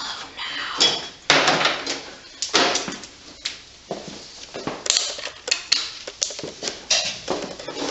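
Hand tools and metal engine parts clicking and clattering in irregular bursts during an engine teardown.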